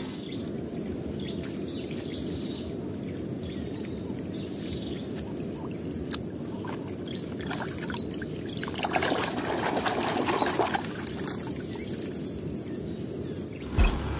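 Shallow muddy water splashing and trickling as toy cars are moved through it by hand, with a louder stretch of splashing about nine seconds in.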